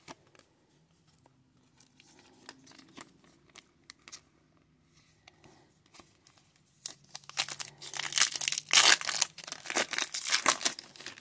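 A few faint taps of card handling, then about seven seconds in the wrapper of a Topps baseball card pack is torn open and crumpled, a loud crinkling that runs on to the end.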